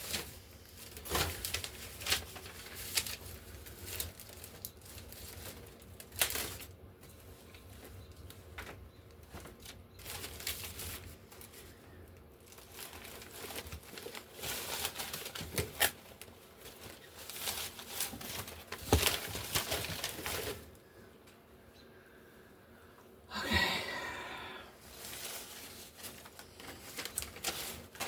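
Paper and craft materials being handled on a work table: irregular rustling, crinkling and light tapping in short uneven bursts, with a quieter pause about three-quarters of the way through.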